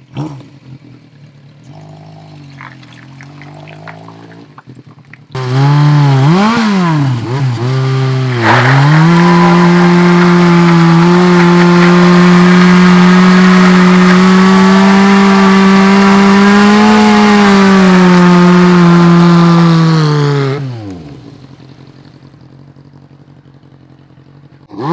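Yamaha Seca II (XJ600) air-cooled inline-four engine running at low revs, then about five seconds in revved hard, blipped up and down a few times, and held at high revs for about twelve seconds before the revs fall away. The high-rev stretch is very loud.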